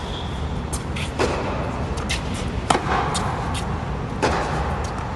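Tennis rally: about five sharp pops of racquet strings striking the ball and the ball bouncing on the hard court, spaced a second or so apart, over a steady low hum.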